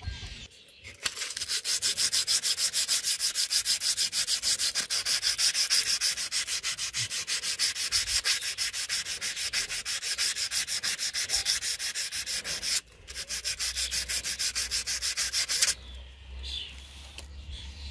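Emery paper rubbed briskly back and forth over a flat steel bar to give it a smooth finish: a fast, even hissing rasp of several strokes a second. It breaks off briefly about two-thirds of the way through, resumes, then stops near the end.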